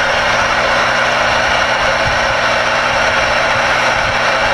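Steady rushing static from the CRE 8900 radio's speaker as it receives a busy CB channel, an even hiss with no voices coming through.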